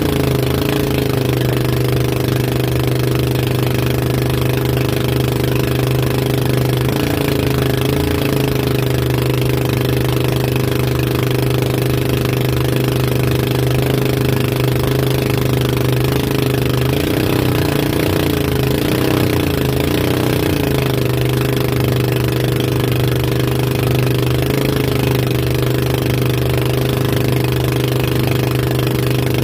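Engine of a motorized outrigger boat running steadily under load while towing a banana boat, its pitch wavering slightly now and then, over a steady hiss of wake and wind.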